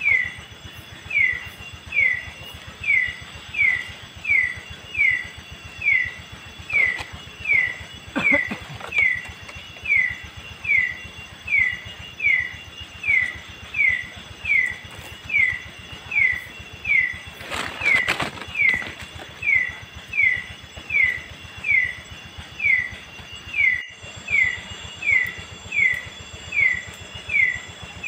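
A night animal calling a short, falling note over and over at an even pace, a little more than once a second.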